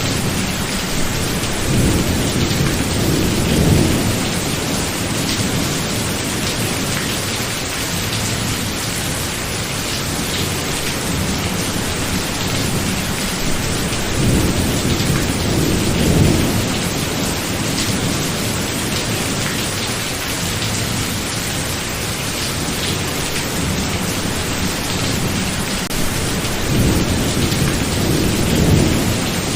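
Thunderstorm: steady rain with three low rolls of thunder, each swelling for a couple of seconds, about twelve seconds apart.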